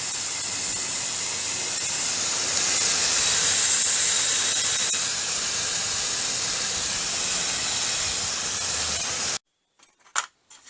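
Pressure washer spraying: a loud, steady hiss of the high-pressure water jet, which stops abruptly about nine seconds in.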